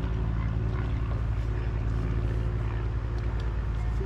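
Steady low drone of an engine running, even in level throughout, with a few faint ticks on top.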